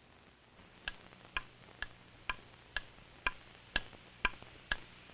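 Clock ticking steadily, about two ticks a second, starting about a second in; each tick is a short, slightly pitched click.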